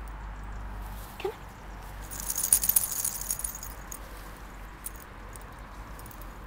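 A small Prague Ratter dog gives one short, rising whimper about a second in, then a burst of light metallic jingling lasts about a second, the loudest sound here.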